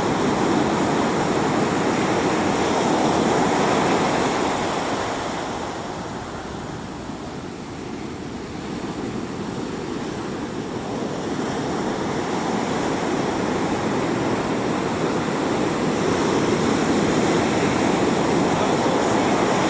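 Ocean surf breaking and washing up the beach, a continuous rush of waves that eases for a few seconds in the middle and then builds again.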